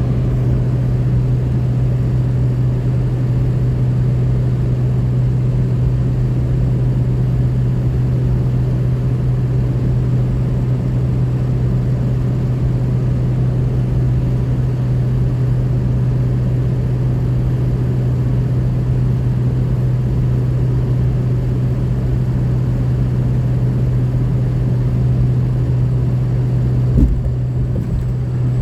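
2003 Ford F350's 6.0 Powerstroke turbo-diesel V8 running steadily with no change in pitch, now without the exhaust leak after a new left Y-pipe to turbo V-clamp. There is a single brief knock near the end.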